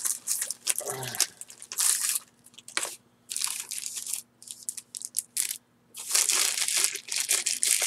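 Packaging crinkling and rustling in irregular bursts as it is handled and pulled open.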